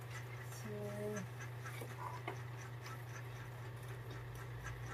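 Faint clinks of a spoon against a pot and plastic plate as food is dished out, over a steady low hum. A brief flat-pitched call sounds about a second in.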